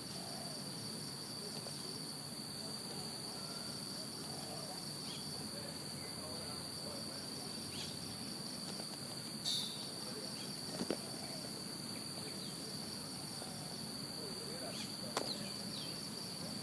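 Steady high-pitched insect drone, like a cricket chorus, with a few faint short calls and three sharp clicks about halfway through and near the end.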